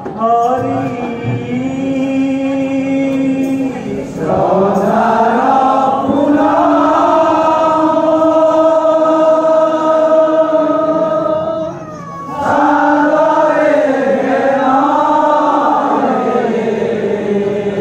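A group of men singing a devotional kirtan chant together in long-held notes, dropping off briefly about twelve seconds in before resuming.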